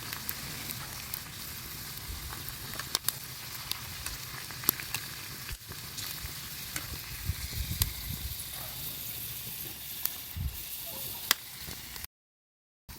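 Food sizzling in a pan over a wood fire: a steady hiss with scattered sharp pops, broken by a brief cut to silence near the end.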